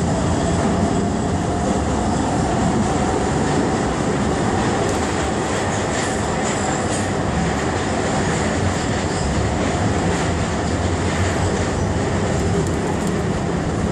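Budapest Metro Line 1 train running through the tunnel: a steady, loud rumble of wheels on rail and running gear, with a few faint clicks.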